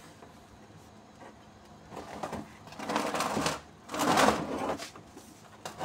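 Hands rummaging through hard chunks of feed in a plastic basin: several bursts of scraping and clattering about a second apart, after a quiet start.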